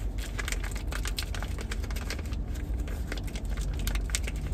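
Plastic packets and a clear vinyl zippered organizer pouch crinkling and clicking as small items are pushed into its pockets, over a low steady rumble.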